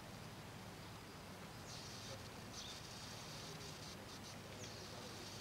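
Faint outdoor park ambience, with thin high-pitched chirping that starts about two seconds in and breaks off and on, over a faint low hum.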